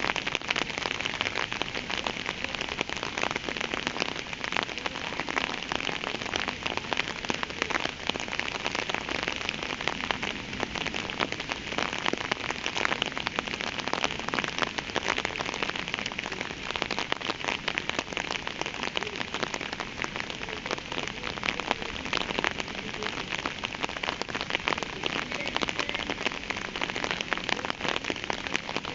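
Steady rain falling on a surface: a dense, even patter of many drops.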